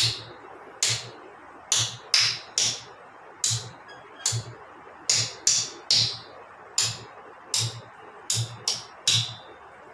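Hand claps close to a microphone: about sixteen sharp claps in an uneven pattern of single claps and quick pairs and triplets. It is a tala rhythm exercise in which the clapping pattern changes while the underlying time cycle stays the same.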